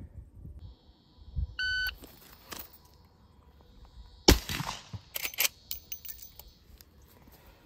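A shot timer beeps once. About two and a half seconds later comes a single sharp .357 Magnum shot from a Marlin 1894 lever-action rifle. About a second after the shot there are two quick metallic clicks as the lever is worked.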